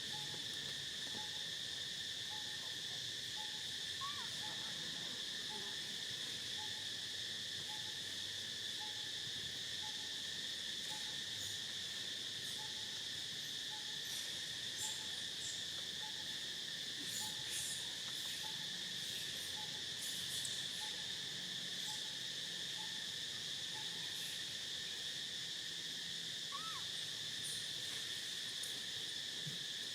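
Steady, shrill chorus of insects, with a soft low note repeating about once a second and a few faint clicks.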